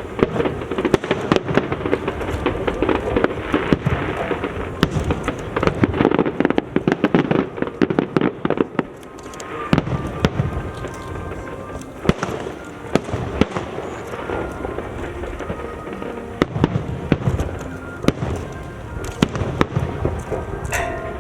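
Fireworks display: many shell bursts and crackles in quick succession, densest through the first nine seconds or so, thinning to scattered bangs after that, with music playing underneath.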